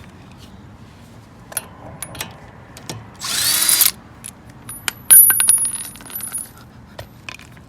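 A power drill whirs briefly about three seconds in. A sharp metal-on-metal clank follows a couple of seconds later, the loudest sound, with a high ringing that fades over about a second. Scattered clicks and knocks of tools and metal parts being handled come before and after.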